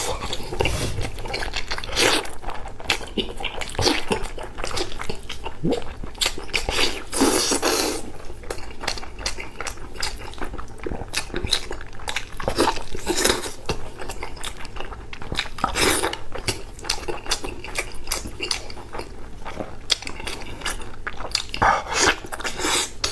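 Close-miked eating of sticky braised pork: wet smacking, sucking and chewing as the meat is bitten and gnawed, in a steady run of short, sharp mouth clicks and squelches.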